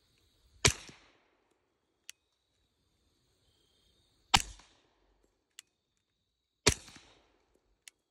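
Suppressed HK USP 45 Tactical pistol firing three .45 ACP shots: the first under a second in, the others about four and seven seconds in, each a sharp crack with a short trailing tail. Fainter single clicks fall between the shots.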